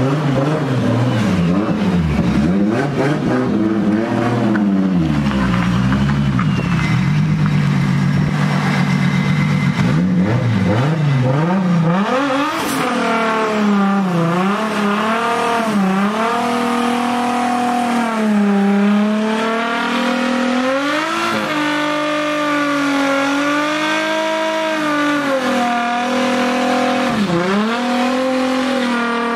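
A freshly cold-started Nissan S13 drift car's engine, running unevenly and blipped for the first several seconds. It is then revved hard up and down again and again, the tires spinning in a smoky burnout.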